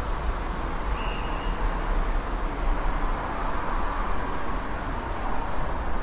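Busy city street traffic: a steady rumble of vehicle engines and tyres on the road.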